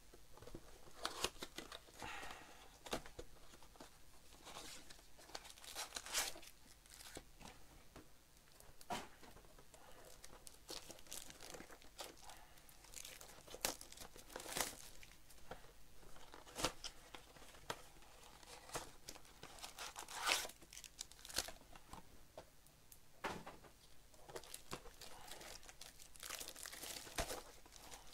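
Clear plastic wrapping on trading-card blaster boxes being torn off and crumpled by hand, in irregular crackling and tearing bursts.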